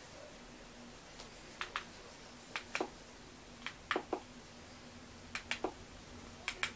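Sharp plastic button clicks from a remote control, often in quick pairs or small clusters, about once a second, as buttons are pressed to move through a menu.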